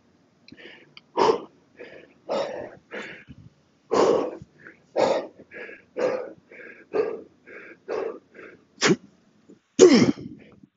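A man breathing hard in short, loud gasps, about one or two a second, winded from heavy kettlebell swings. Near the end there is a louder grunting exhale as he hikes the kettlebell into a swing.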